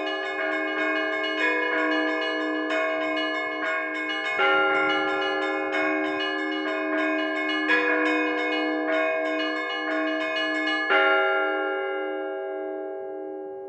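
Orthodox church bells rung in a peal: quick, busy strikes on the small bells over a heavier bell stroke about every three seconds. About eleven seconds in the striking stops on a final accent and the bells are left ringing out and fading.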